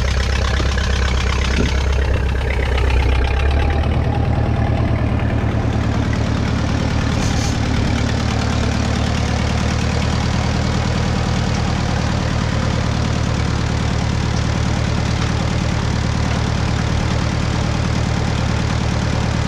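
1956 Case 411 gas tractor's engine running steadily, its note changing slightly about three and a half seconds in.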